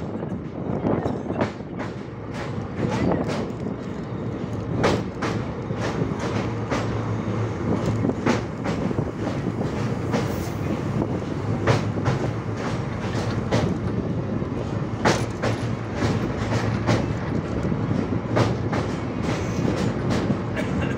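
Train running at speed across a bridge: a steady rumble of wheels on rails, with repeated sharp clacks as the wheels pass over rail joints.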